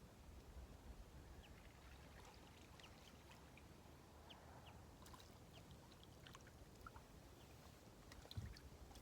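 Near silence: faint riverside ambience, with a low rumble and scattered brief high ticks and chirps, and a couple of small knocks near the end.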